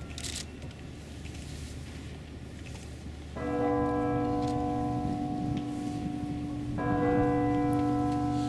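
Church bell tolling: a strike about three and a half seconds in, and another near seven seconds, each left ringing on.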